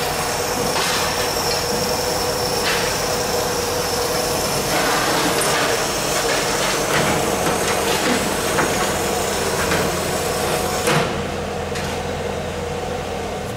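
Steady workshop machinery noise, a constant hum and hiss, with scattered metal knocks and taps; the hiss stops about eleven seconds in.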